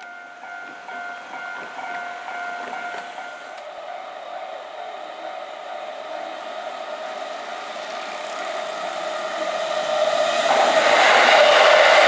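Japanese level-crossing warning bell ringing in steady repeated dings that fade after a few seconds. An electric commuter train then approaches and passes over the crossing, its rushing rumble growing until it is loudest near the end.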